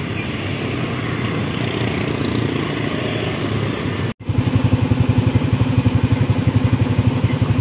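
Street traffic with motorcycles going by. After a cut about four seconds in, a motorcycle engine runs close by at idle with a fast, even pulse.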